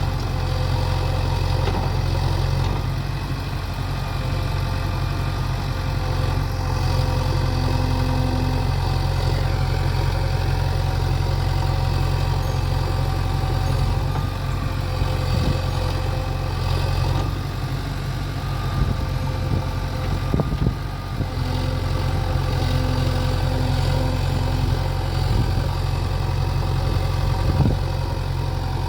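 Diesel engines of a backhoe loader and tractors running steadily at low revs, with a few short clanks.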